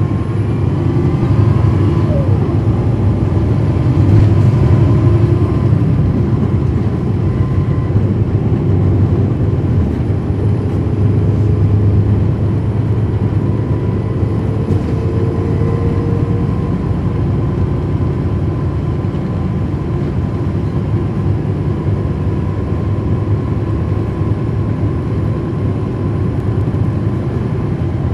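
Cummins ISL9 diesel engine of a 2010 NABI 40-foot suburban transit bus running under way, heard from inside the bus: a low steady drone that swells a little about four seconds in and again around twelve seconds, with a faint whine rising in pitch in the middle.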